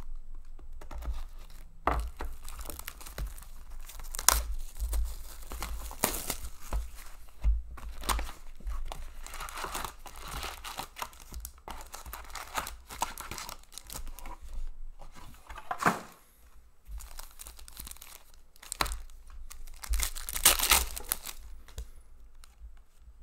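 Plastic wrapping of a 2019-20 Upper Deck Series Two hockey card box and its packs being torn open and crinkled: a continuous rustle broken by sharp tearing bursts, the loudest cluster near the end.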